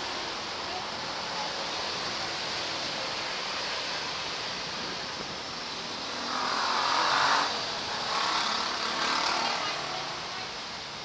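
Street traffic over a steady background rush, with a vehicle passing close about six seconds in and another passing soon after.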